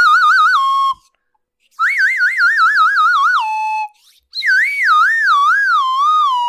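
Comic whistle sound effect: three wobbling whistle phrases, each sliding downward in pitch and ending on a held low note. The wobble is quick in the first phrase and slower and wider in the last.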